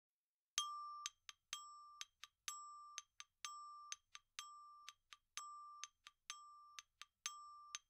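Title jingle: a bright, bell-like mallet-percussion figure, one longer ringing note followed by two quick short plinks, repeated about once a second.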